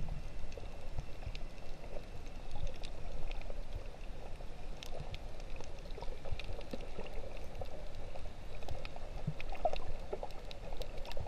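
Underwater sea sound picked up by a submerged GoPro while snorkeling: a muffled wash of moving water with a low rumble and many scattered small clicks and crackles.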